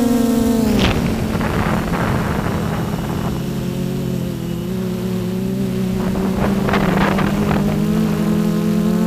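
Brushless motors and 10-inch propellers of a 6S quadcopter, heard from the aircraft itself. The motor whine drops in pitch about a second in as the throttle comes off, leaving gusty rushing air from the props and wind while it descends, then the whine picks up and rises again near the end as the throttle comes back on.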